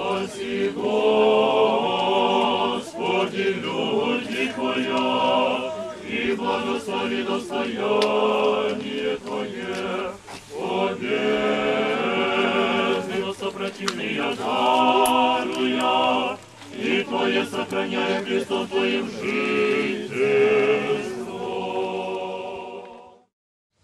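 Orthodox church chanting, several voices singing a liturgical chant together. It cuts off suddenly near the end.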